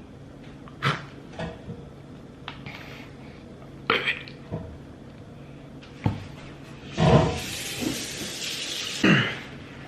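Scattered light knocks and clinks of a spoon against a dish, then a couple of seconds of hissing noise near the end that ends in a louder burst.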